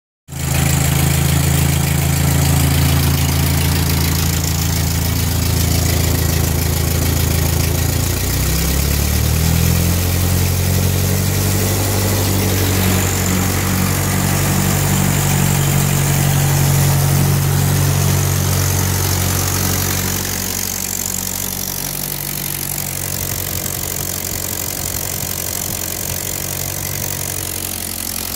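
1946 Ford 2N tractor's four-cylinder flathead engine running steadily, freshly rebuilt with a new gasket set and valve seals and its carburettor rebuilt and tuned. Its pitch wavers briefly about eight seconds in, and it runs a little quieter from about twenty seconds.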